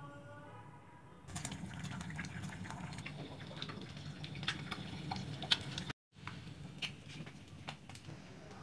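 Close-up mouth sounds of someone eating chilli-oil noodles: a string of small irregular chewing clicks. The sound cuts out for a moment about six seconds in.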